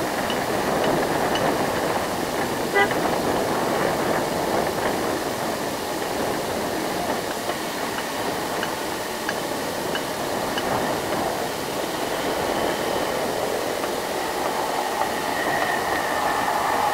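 A micro bus's engine running steadily as it drives past on the road, with one short horn toot about three seconds in.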